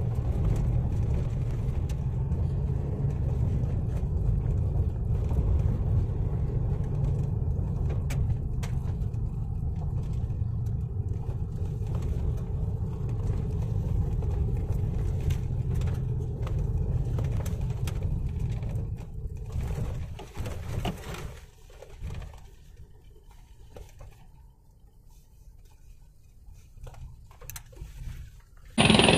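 Road noise heard inside a moving car's cabin: a steady low rumble of tyres on a rough dirt road and the engine, with scattered small rattles. About two-thirds of the way through the rumble drops away to a much quieter, uneven murmur.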